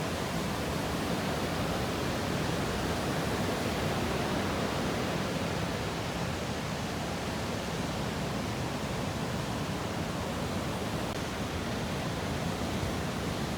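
Steady rush of breaking ocean surf: an even, continuous noise with no distinct crashes.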